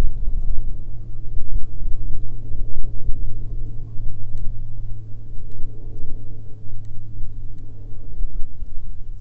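Low, steady rumble of an airplane passing in the distance, rising and falling unevenly in loudness.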